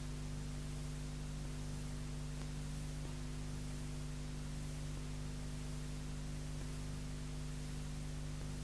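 Steady low electrical hum with hiss on an otherwise silent soundtrack: the background noise of a Hi8 videotape transfer.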